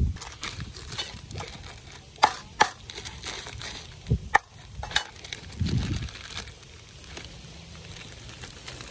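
Plastic instant-noodle packet crinkling as it is handled and cut open with a knife against a wooden chopping board, with scattered sharp clicks and taps, most of them in the middle of the stretch.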